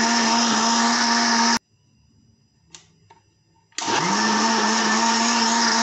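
Electric blender motor running steadily as it blends a yogurt, gram flour and water batter, then cutting off about a second and a half in. After a faint click it starts again about two seconds later, spinning up quickly to its steady pitch.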